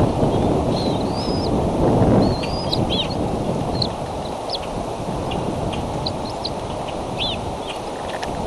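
Short, high bird chirps and small wavering whistles, scattered through, over a steady rush of wind noise on the microphone.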